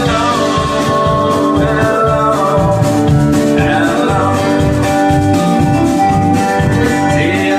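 Live band playing music loud and steady, with a steady low rhythm under held and sliding notes.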